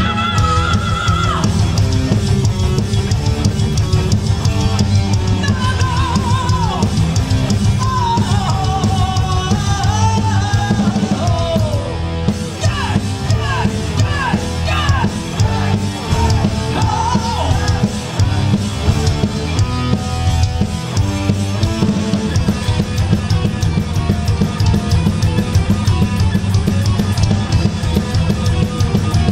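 Heavy metal band playing live at full volume: distorted electric guitars, bass and a drum kit. A high lead melody slides up and down in pitch through the middle, and the drumming grows busier near the end.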